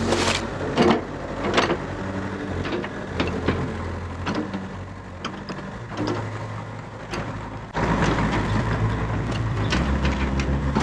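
Yanmar VIO50 mini excavator's diesel engine running steadily, with sharp clicks and knocks over it; the engine gets louder about eight seconds in.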